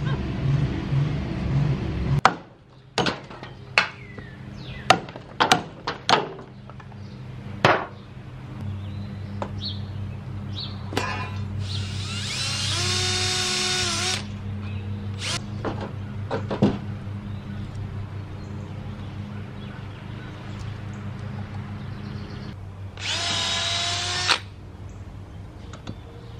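Cordless drill running in two bursts of about two seconds each, boring into a log, with a steady low hum underneath. Before that, metal scraping and a few sharp knocks as the steel tank shell is shifted on corrugated metal sheeting.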